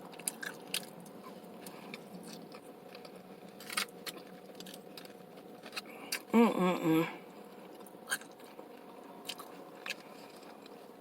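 Close-up chewing and crunching of tortilla-chip nachos, with scattered sharp crunches and mouth clicks. A short hummed voice sound comes about six seconds in.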